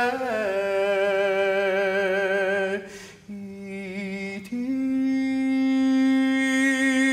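A man singing a slow traditional folk song unaccompanied, holding long notes with a slight vibrato. The voice softens briefly near the middle, then rises to a higher note that it holds to the end.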